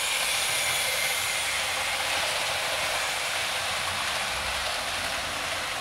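OO gauge model Bulleid Pacific steam locomotive and its coaches running along the track, a steady whirring rush of motor and wheels on rail that is a little louder at first and eases off slowly.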